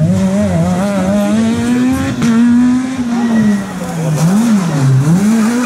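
Rally car engines driven hard on a special stage, the engine note rising and falling with throttle and gear changes. Near the end the pitch drops low twice and climbs back as the car brakes and accelerates again.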